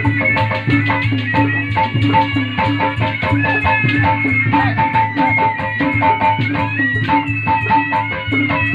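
Traditional Indonesian pencak silat accompaniment music: fast, busy hand-drum strokes under a repeating pitched gong-like note and a wavering high melody line, playing steadily.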